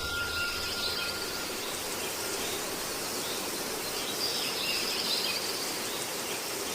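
Steady background hiss with faint, high, wavering chirps, like outdoor ambience.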